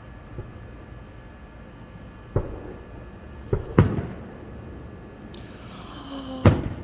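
Aerial fireworks bursting: four sharp bangs, two in quick succession in the middle and the loudest near the end, over a steady background hiss.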